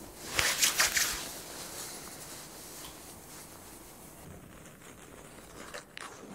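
A quick run of rustling, scratching strokes about half a second in, lasting under a second, from hands working through short cropped hair and brushing clothing, then only a faint hush.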